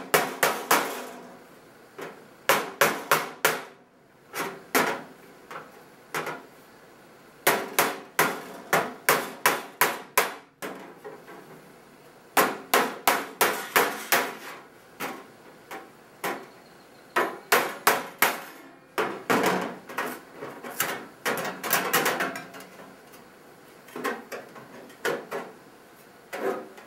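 Hammer striking an old chisel against the sheet-metal top of a range hood, in runs of sharp strikes about three a second with short pauses between them. The strikes are breaking the tabs that hold the knockout plate over the duct opening.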